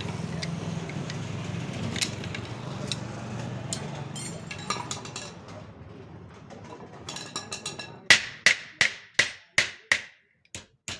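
A steady low hum with scattered knocks fades away, then about eight seconds in a hammer starts striking metal in a quick, even rhythm of about three blows a second, each blow ringing.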